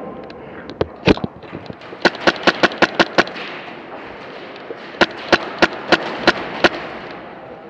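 Airsoft gun firing: two single shots about a second in, then a quick string of about seven shots, and a few seconds later a slower string of about six shots.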